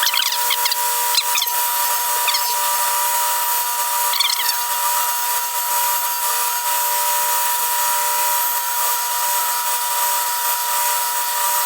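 Surface grinder running, with a steady high whine and a grinding hiss as its wheel grinds hardened steel bandsaw guide blocks flat. A few brief higher chirps cut through, one about four seconds in.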